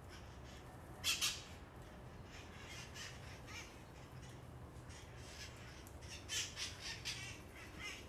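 Feral red-masked parakeets (cherry-headed conures) squawking with harsh, screechy calls: a loud pair about a second in, scattered calls after it, then a quick run of screeches near the end.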